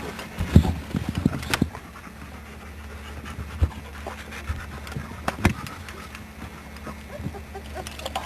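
A dog panting, with a few soft thumps and knocks, the loudest about half a second in and again around five and a half seconds in, over a low steady hum.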